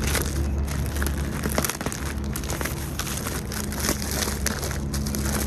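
Packaging crinkling and rustling as a shipped package is handled and opened by hand, with many small irregular crackles.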